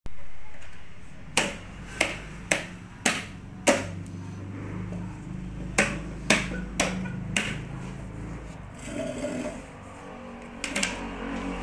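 Hand knocking down on the seat of a metal-legged stool during assembly: a run of sharp knocks about twice a second, five in a row, a short pause, then four more, with a softer clatter near the end.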